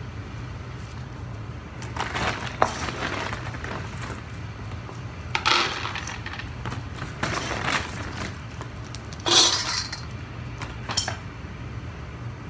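Dry dog kibble scooped and poured into dog bowls, rattling in several separate pours, over a steady low hum.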